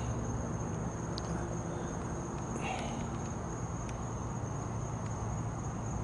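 Crickets trilling: one steady, unbroken high note, over a low steady hum and a few faint clicks.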